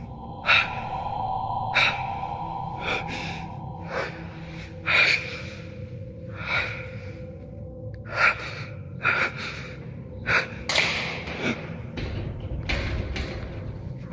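A person's short, breathy gasps and heavy exhalations, about a dozen, coming irregularly, over a faint steady hum.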